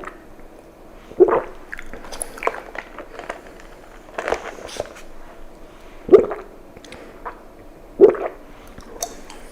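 Close-miked mouth sounds of someone drinking bubble tea: four loud gulps about two seconds apart, with smaller sticky, wet clicks of chewing tapioca pearls between them.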